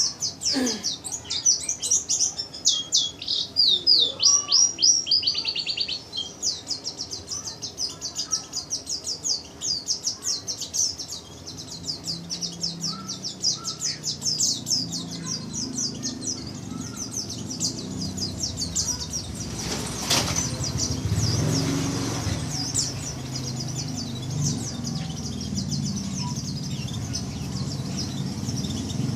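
White-eye (pleci) singing in rapid, high chirping trills, loudest in the first six seconds and carrying on throughout. From about twelve seconds in a low rumble runs underneath, and a brief rushing noise comes about twenty seconds in.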